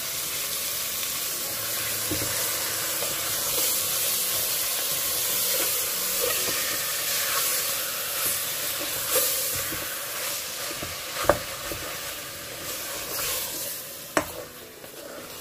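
Mutton chops sizzling in hot oil in a pressure cooker while being stirred with a wooden spatula. A few sharp knocks of the spatula against the pot come near the end, as the sizzle dies down.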